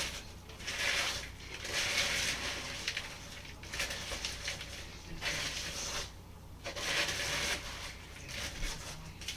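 Crisp Chex cereal being stirred into the melted chocolate and peanut butter with a mixing spoon in a bowl: a dry, crunchy rustling in repeated strokes about every second or so.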